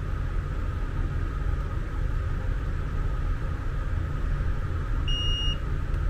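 A multimeter's continuity buzzer gives one short, high, pure beep about five seconds in, during a continuity check with the test probes. A steady low background rumble runs underneath.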